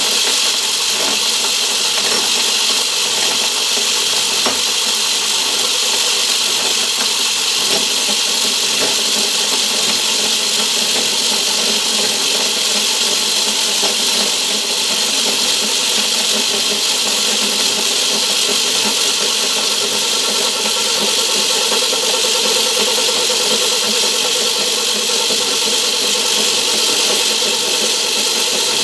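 Myford ML7 lathe running steadily at slowed speed while taking a thread-cutting pass: a constant mechanical hum with several held tones.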